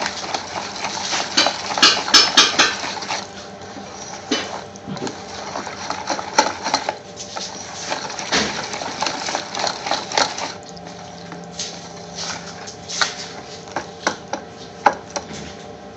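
A wooden spoon and then a wire whisk beating thick yogurt-based tikka paste in a bowl: wet stirring and slapping, with clicks and knocks of the utensil against the side of the bowl. The clatter is busiest about two seconds in.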